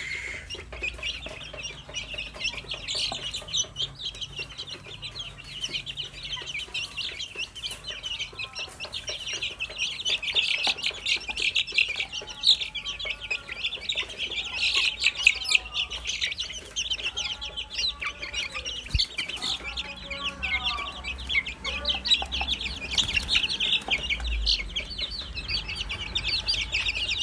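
A brood of young white H'Mông chicks peeping constantly in a dense chorus. Lower, fuller calls join in about a third of the way through and fade out before the end.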